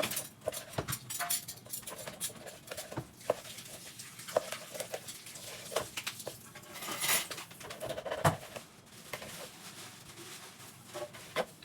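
Knife and fork cutting through pan-fried pork on a plate: irregular clicks and scrapes of cutlery, with a few louder scrapes.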